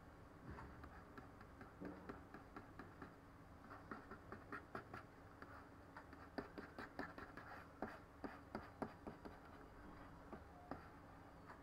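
Faint computer mouse clicks and small scrapes over a low room hum, a few at first, then a quick run of clicks from about four to nine seconds in.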